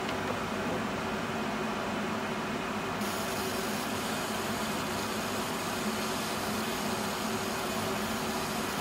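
Laser engraving machine running while stippling a Glock G19 frame: a steady hum with a hiss that grows fuller about three seconds in.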